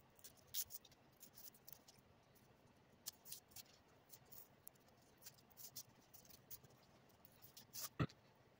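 Hobby knife picking and scraping at foam board as score-cut strips are lifted and peeled out: faint, scattered ticks and scratches, with one louder knock about eight seconds in.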